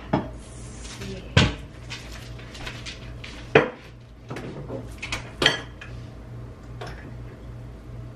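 Kitchen clatter of dishes and utensils being handled and set down on a counter: a series of sharp clinks and knocks, the loudest about a second and a half, three and a half and five and a half seconds in, over a steady low hum.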